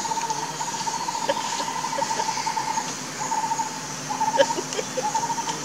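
Forest sounds: a rapid, pulsing animal call near one pitch, repeated in phrases, over a steady high insect buzz, with a few light clicks about four seconds in.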